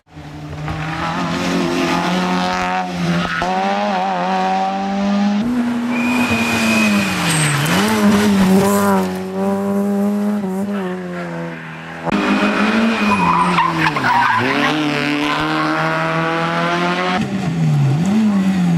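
Small rally hatchbacks, a Citroën Saxo among them, driven flat out on a stage in several short cuts. The engines rev high, with the pitch falling and climbing again through gear changes and braking for bends, over tyre and gravel noise.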